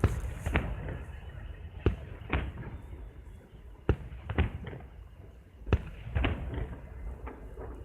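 Fireworks going off at a distance: about seven sharp bangs at uneven intervals, several coming in pairs about half a second apart, over a low rumble.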